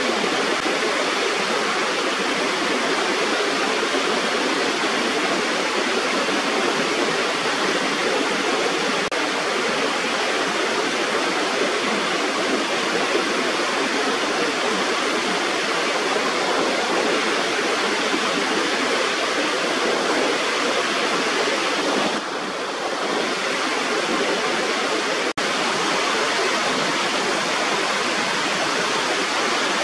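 Small waterfall spilling over a rubber weir: a steady, even rush of falling water, with a brief dip and a split-second drop-out about three-quarters of the way through.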